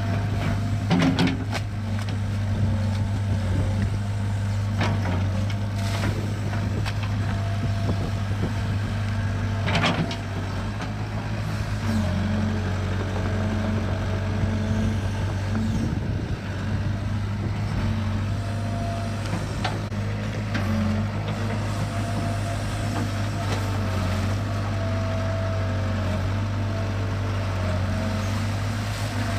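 Kobelco SK60-1 crawler excavator's diesel engine running steadily, with a few sharp clanks and knocks from the machine, mostly in the first ten seconds.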